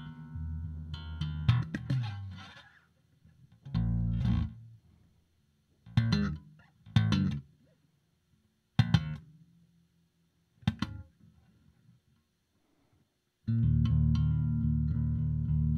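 Electric bass guitar being improvised. A busy passage fades out, then a handful of single notes ring out a second or two apart with silence between them. About 13.5 s in, a loud, full sustained passage starts.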